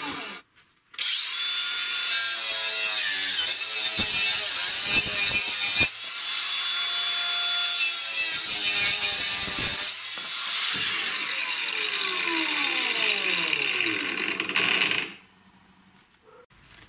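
Makita brushless angle grinder fitted with a saw blade and base plate, running and cutting through laminated chipboard: a high whine with rasping cut noise, broken briefly twice. Over the last few seconds its pitch falls before the sound stops abruptly.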